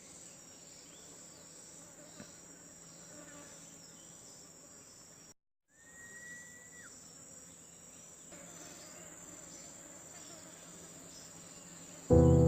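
Forest insects, cricket-like, keep up a steady high-pitched chirring, with a single short high whistle about six seconds in. The sound cuts out for a moment about five seconds in. Loud music starts abruptly near the end.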